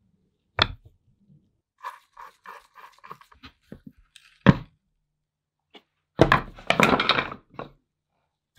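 A knock on a wooden workbench, then a screwdriver driving a screw through a cast-iron bracket into the wooden lid of an antique ice cream maker: a run of short squeaky clicks, about four a second. A sharp knock follows, then, near the end, a clatter of wooden parts handled on the bench.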